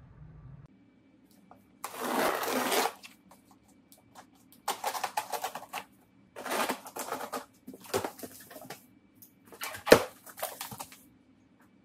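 Large cardboard shipping box being handled and opened: a series of scraping, rustling bursts of cardboard and tape, with a sharp knock about ten seconds in.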